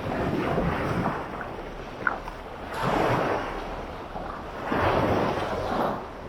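Sea waves washing onto a beach, surging in and ebbing away in swells about every two seconds, three times. A brief sharp click about two seconds in.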